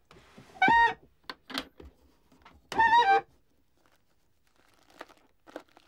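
Wooden table drawer squeaking as it is pulled open: two short, high squeaks about two seconds apart, with light knocks and the rustle of cloth being handled.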